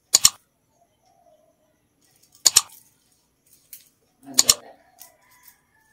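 Metal link watch bracelet with a push-button folding clasp, clicking as it is opened, closed and fitted on a wrist: three sharp metallic clicks about two seconds apart, with a few fainter ticks between.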